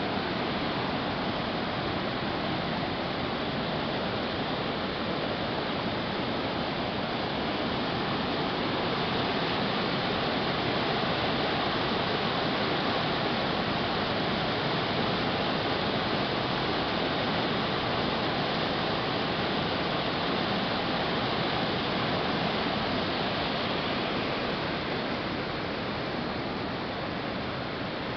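Flood-swollen stream of muddy rainwater rushing and churning over rapids: a steady, loud rush of turbulent water, easing a little near the end.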